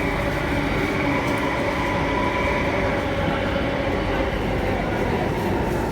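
SMRT Alstom Metropolis C830C metro train braking to a stop, heard from inside the car. A steady rumble from the running gear carries several held whining tones, the weird braking sound this train makes.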